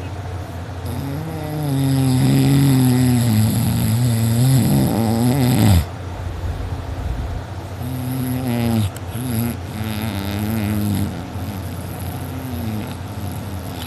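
A person snoring loudly in deep sleep, two long rattling snores: the first lasts about five seconds and cuts off sharply, the second is shorter and comes a couple of seconds later. The sleeper puts the snoring down to drinking too much before going to sleep.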